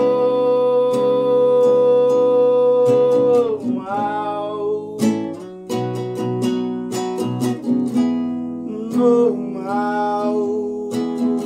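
A man sings to his own plucked classical guitar, played with a capo. He holds one long note for the first three seconds or so, then sings short phrases that slide in pitch, while the guitar keeps picking out notes throughout.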